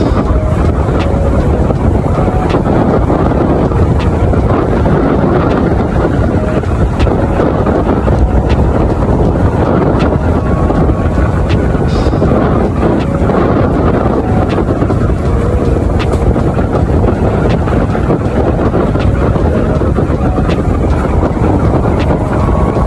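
Strong wind buffeting the microphone: a loud, steady low rumble that runs on without a break.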